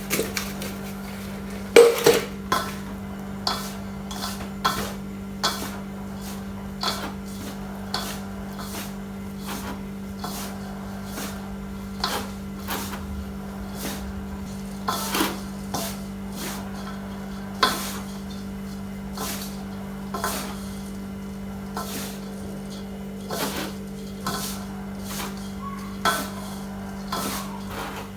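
A utensil clinking and knocking against a bowl while ingredients are mixed, in irregular strikes every half second to a second. A steady low hum runs underneath.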